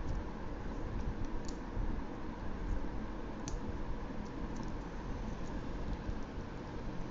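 Paper being folded and creased by hand: soft handling noise with a few light, sharp clicks and taps as fingers press the folds against the table, over a steady low background hiss.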